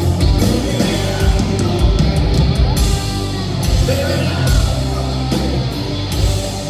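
Southern rock band playing live: electric guitars, bass and drums, with the lead singer singing into the microphone, heard from among the audience.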